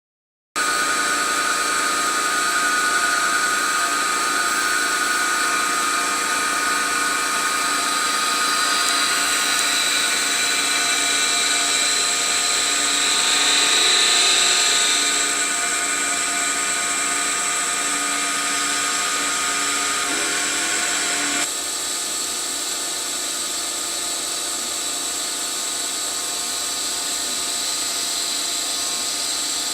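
DB11V bench machine converted to CNC under Mach3 control, running steadily with a whining, multi-toned motor noise. It swells briefly about halfway through, then settles to a slightly quieter level shortly after.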